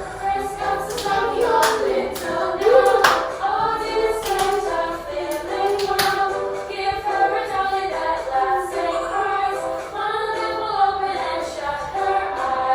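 Young children singing together over backing music, with a few scattered hand claps.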